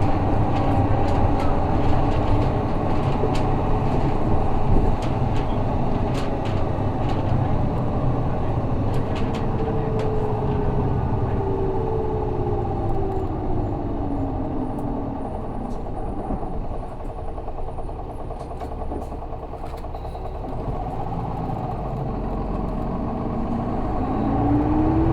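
Interior sound of an Isuzu Erga city bus with its 6HK1 diesel engine running on the road. A whine falls in pitch about halfway through as the bus slows, the sound drops to a quieter lull, then the whine rises again near the end as the bus pulls away, with scattered small clicks and rattles in the cabin.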